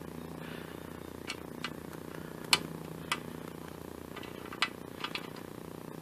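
Scattered light metallic clicks and taps as a bolt is handled and fitted by hand on a small mower engine, about eight in all, the sharpest about two and a half seconds in.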